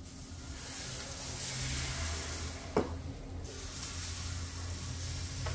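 Batter from a squeeze bottle sizzling with a soft hiss as it lands on the hot plates of a preheated electric taiyaki pan. A low hum runs underneath, and there is a single click a little under three seconds in.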